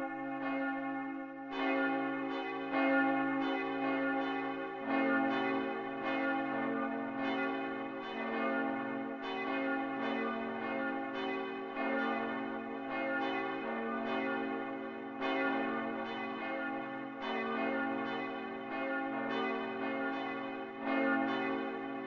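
Several church bells ringing together in a peal, their strikes overlapping over a lingering low hum. A deeper bell joins about five seconds in.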